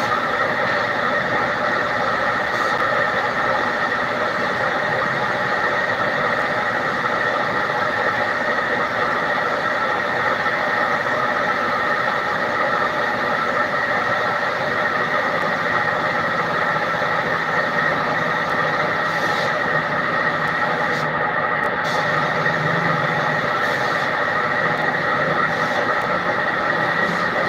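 Air spray gun spraying PU clear sealer, a steady, unbroken hiss and whine of compressed air.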